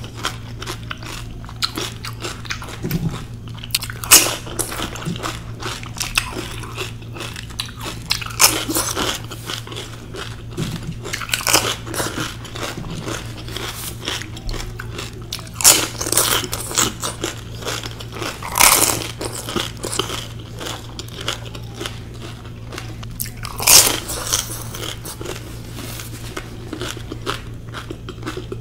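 Close-up eating sounds of crisp pani puri: loud crunches as the fried puri shells are bitten every few seconds, with steady wet chewing between them. A steady low hum runs underneath.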